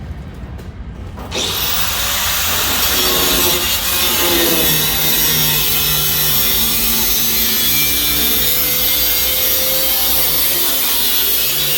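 Power tool cutting through the sheet metal of a car's quarter panel, starting about a second in and running steadily with a wavering pitch as it works under load.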